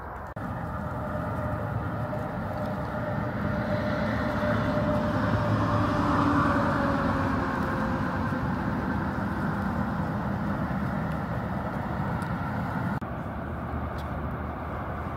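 Engine noise, with a faint hum that sinks slightly in pitch. It swells to its loudest about six seconds in and then eases off. It drops to a lower level at a cut near the end.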